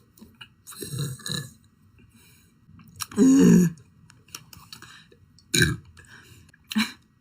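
A young woman burping several times in a row, the loudest and longest burp about three seconds in, with shorter ones before and after.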